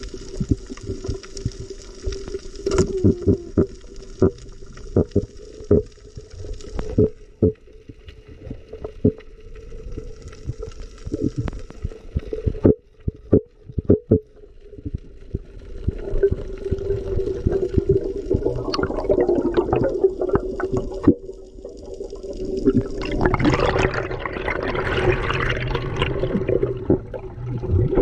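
Underwater sound picked up by the diver's camera: muffled water noise with a steady hum, many scattered sharp clicks and knocks, and a louder rush of water about three-quarters of the way through.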